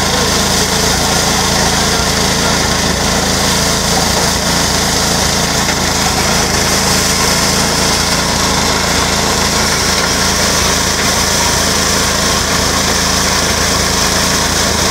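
Small petrol engine driving a grain sheller, running steadily under load as heads of guinea corn (sorghum) are fed in, with the steady hiss and rattle of grain being threshed.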